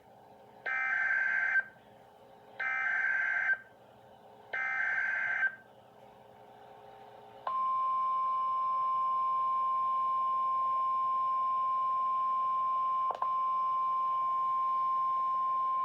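Emergency Alert System header: three short bursts of warbling digital SAME data tones, each about a second long, then a long steady single-pitch attention tone starting about seven and a half seconds in, with a brief glitch about thirteen seconds in.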